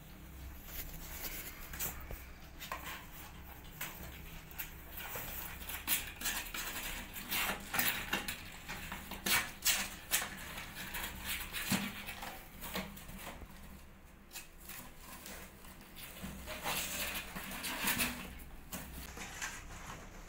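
Kittens' claws scratching and scraping on a cardboard box as they climb its walls, in irregular flurries that are busiest around the middle and again near the end.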